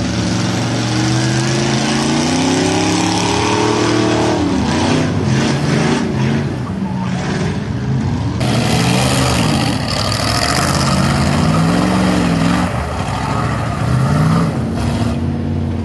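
Pickup truck engines revving hard as the trucks power through deep mud, the pitch climbing and dropping again and again, over the hiss of spinning tyres churning mud. About eight seconds in, the sound jumps to a noisier, hissier stretch.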